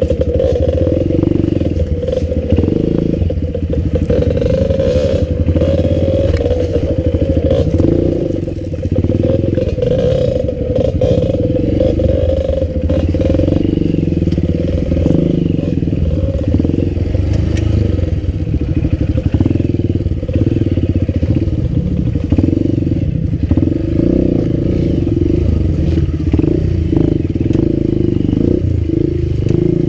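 Enduro dirt bike engine running under way, its revs rising and falling in steps, with some clatter.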